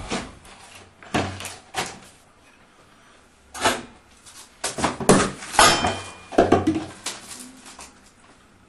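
Handling noises from a bottle being drunk from and set down on the floor: a run of short knocks, clunks and rustles, most of them between about five and six seconds in.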